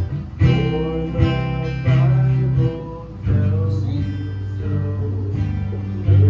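Acoustic guitar music with strummed chords over a steady bass.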